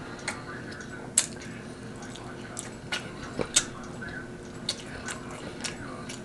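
Close-miked eating of rotisserie chicken: scattered wet mouth clicks and smacks from chewing and licking fingers, with about a dozen sharp clicks at irregular intervals over a faint steady hum.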